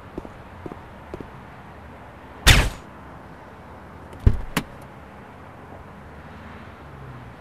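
A car door opened with a loud, sharp clack about two and a half seconds in, then shut with a heavy thud and a click a second and a half later.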